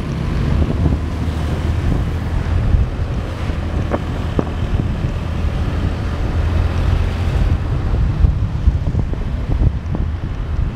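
Wind buffeting the microphone of a moving motorbike, a loud, steady rushing over a low rumble of engine and road noise.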